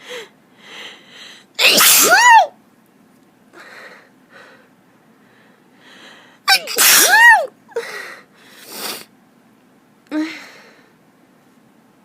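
A woman's loud, high-pitched allergy sneezes: two full sneezes about five seconds apart, each voiced with a pitch that rises and then falls. Short breathy inhales and sniffles come before and between them.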